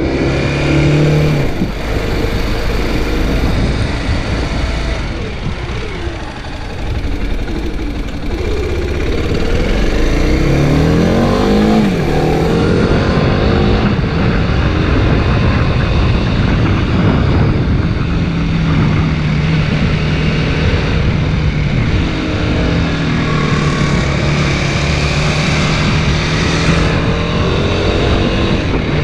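Kawasaki Ninja 250 RR Mono's single-cylinder engine on the move. Its pitch climbs in several rising sweeps as it accelerates through the gears, then it holds steady at cruising speed, with heavy wind rush on the microphone throughout.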